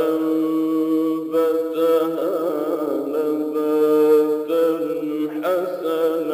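Male Quran reciter in the ornamented mujawwad style, holding a long drawn-out vowel. The pitch wavers through melodic turns about two seconds in and again near the end, and between them the note is held steady.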